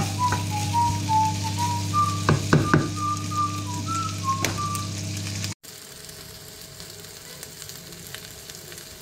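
Diced chicken and red onion sizzling as they fry in a pan, stirred with a wooden spatula that knocks against the pan a few times about two and a half seconds in, under a low steady hum and a tune whistled over the top. About five and a half seconds in the sound cuts abruptly to a quieter, steady sizzle.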